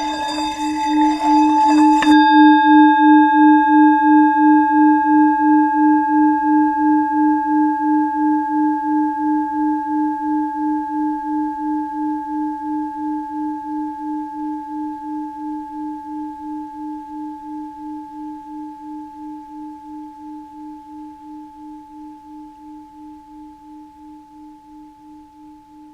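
Tibetan singing bowl building up with a rough, scratchy sound for about two seconds, which stops abruptly. The bowl then rings on in one low tone with a few higher overtones, pulsing with a steady wobble and slowly fading.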